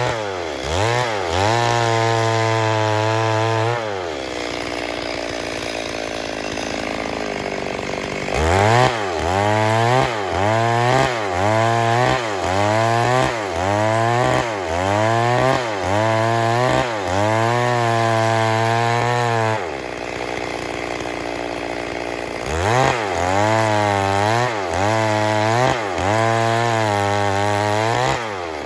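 Stihl MS 382 two-stroke chainsaw at high revs, cutting wood. The engine pitch dips and recovers about once a second as the chain bites, and twice it falls to a lower, rougher sound for a few seconds.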